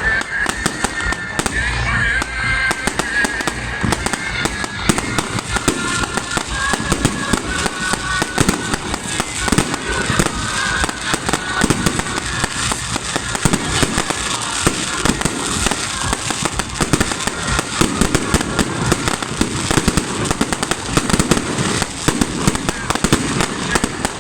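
Fireworks salute: shells bursting in quick succession, a dense, unbroken run of bangs and crackling.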